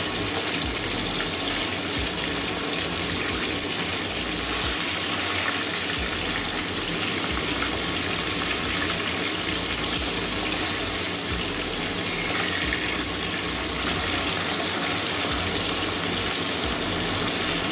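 Bata fish pieces frying in hot mustard oil in a steel kadai, with a steady, even sizzle.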